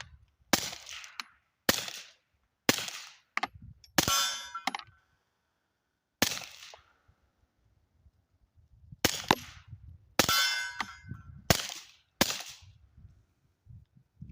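About nine suppressed shots at an uneven pace from a Taurus G3 Tactical 9mm pistol fitted with a Resilient RSP suppressor, firing 135-grain reloads. Each shot is a sharp crack, and a steel target clangs and rings after two of them, about four and ten seconds in.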